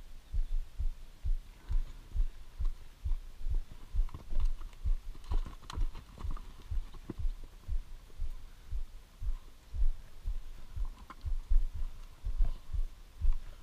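Regular low thumps, about two to three a second: footsteps of the wearer of a chest-mounted camera, carried through the body into the camera. A few faint clicks from the horses moving about on the dirt come through now and then.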